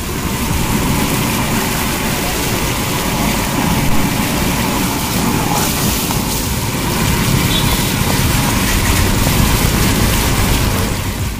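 Chicken gravy boiling hard in a large iron kadhai over a wood fire: a loud, steady, rushing roar.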